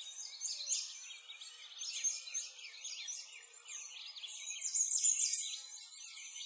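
Many songbirds chirping together, a dense chorus of quick, high, overlapping calls with no low sounds beneath it.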